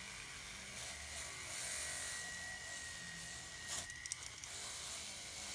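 Rotary tool running with a steady high whine while a cotton buff charged with polishing compound is worked over a silver wire-wrapped pendant. A short burst of clicks a little under four seconds in.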